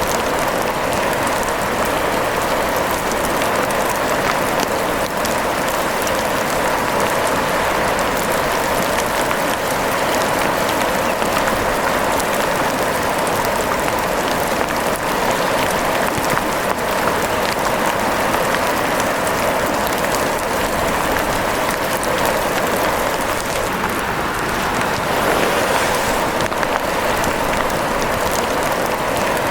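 Steady rain: an even hiss of falling rain with many fine scattered ticks of drops.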